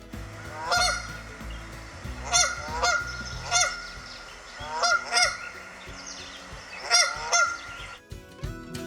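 A goose honking: about eight short honks, mostly in pairs, a second or two apart.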